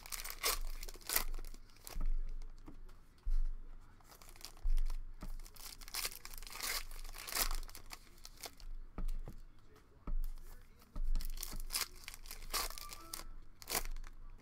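Foil trading-card pack wrappers being torn open and crinkled by hand: repeated sharp tearing and crinkling, with occasional low thumps.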